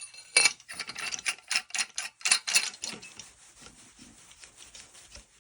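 Threaded aluminum staff sections being handled and screwed together, metal rubbing and clicking in a quick series of scraping ticks, about four a second, that grow fainter after about three seconds.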